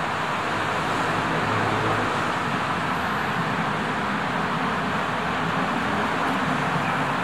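Steady city traffic noise, an even rushing hum with no distinct events.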